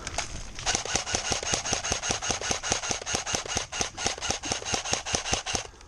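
Airsoft electric rifle (AEG) firing full-auto in a long burst: a steady motor and gearbox whine under rapid, even clacks, about eight shots a second, breaking off briefly near the end.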